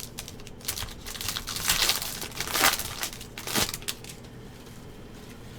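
A foil trading-card pack wrapper being torn open and crinkled by hand, in a few sharp crackling bursts between quieter rustling.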